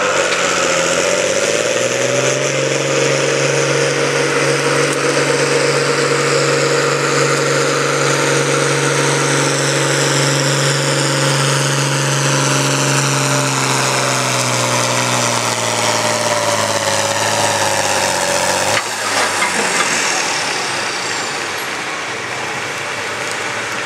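John Deere 4020 tractor's six-cylinder engine at full throttle under load, pulling a weight-transfer sled. The note dips as the pull begins, holds steady for about ten seconds, then sags slowly as the load mounts, and drops abruptly about 19 seconds in as the throttle comes off at the end of the pull, leaving a quieter running engine.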